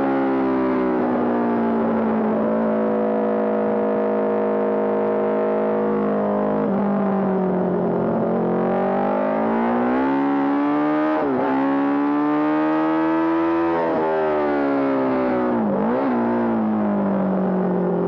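Honda CB750 Four-based race bike's air-cooled inline four-cylinder engine running hard at race speed. Its pitch sags and holds, then climbs steadily under acceleration, with quick dips in pitch about 11 and 16 seconds in as gears are changed.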